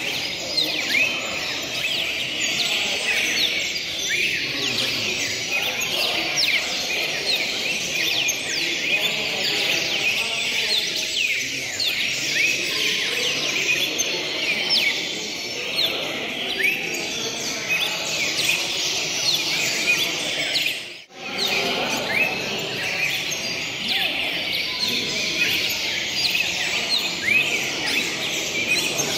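Many caged red-crested cardinals singing at once in a song contest, a dense overlapping chorus of short chirps and whistled phrases over a low background murmur. The sound drops out for a moment about two-thirds of the way through.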